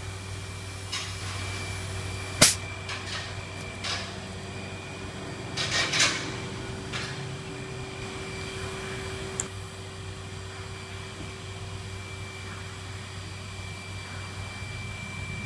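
Scattered clicks and knocks from a hand-held sausage-type adhesive gun being worked along a panel joint, over a steady low workshop hum. The sharpest click comes about two and a half seconds in, and a cluster of knocks comes around six seconds.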